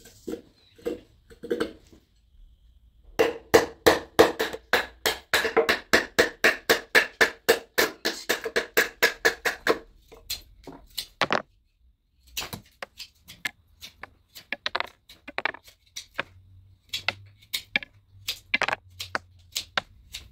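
Knife whittling a point onto a green stick: short scraping strokes as the blade slices off shavings, a quick steady run of about three a second, then after a pause slower, scattered strokes.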